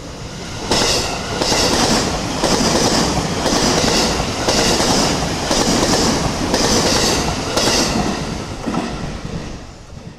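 E653-series electric multiple unit train running past at speed. The wheels clatter and hiss in a regular beat, a little more than one a second, as each car goes by. The sound swells as the train arrives and dies away near the end.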